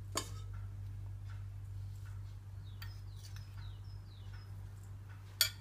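A metal spoon scraping and tapping a small glass bowl as spice powder is tipped into a steel pot: scattered light clicks, with a sharper clink just after the start and the loudest near the end. Faint short high chirps come in the middle, over a steady low hum.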